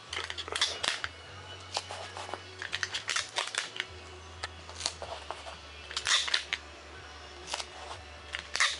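Paper plans rustling and tape being torn off and pressed down onto foam board: irregular clusters of short crinkles and clicks, with a low steady hum underneath.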